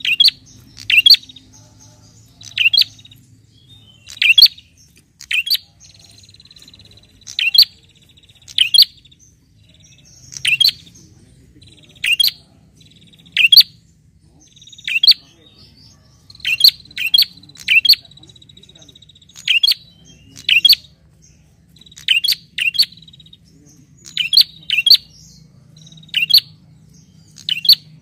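Caged tailorbird calling: short, loud, sharp notes, often in pairs, repeated every second or two, given as a challenge call to a rival. A thin, steady, high buzz runs between the calls.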